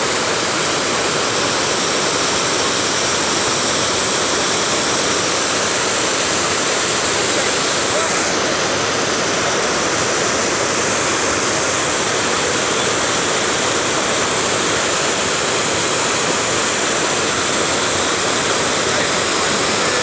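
Large waterfall plunging through a narrow rock gorge: a loud, steady rush of falling water.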